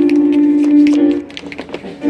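Swing-era dance music playing: a long held note for about a second, then it drops away to lighter rhythmic percussion.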